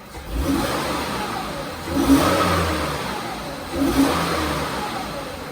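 Mazda MPV's 3.0-litre V6 revved by three quick throttle snaps, about two seconds apart, each rising and then falling back toward idle: a snap-throttle test for a cylinder misfire under load.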